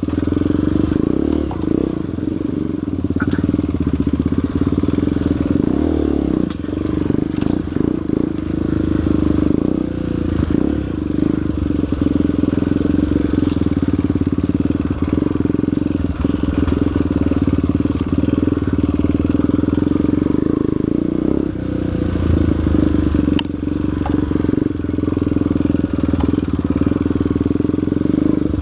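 Single-cylinder four-stroke trail motorcycle engine running at a fairly steady pitch as the bike is ridden off-road, with a few short knocks and rattles.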